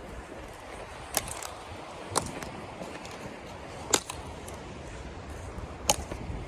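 Four sharp knocks, spaced one to two seconds apart, over a steady rushing background.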